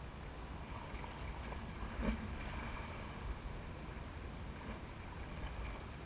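Ambient sound aboard a boat at sea: water and wind noise over a steady low rumble, with one knock about two seconds in.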